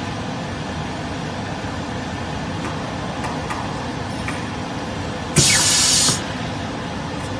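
YMJ screen laminating machine running with a steady noise, then about five seconds in a loud, sharp hiss of compressed air lasting under a second as its pneumatic press head releases and lifts off the screen, ending the laminating cycle.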